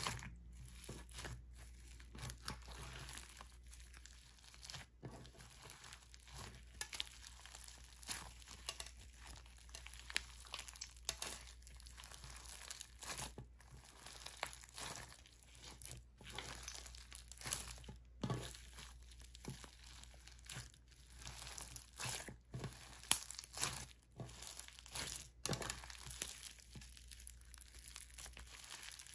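Clear slime packed with foam beads being squeezed and kneaded by hand: a continuous run of small crackles and clicks as the beads press and pop against each other in the sticky slime.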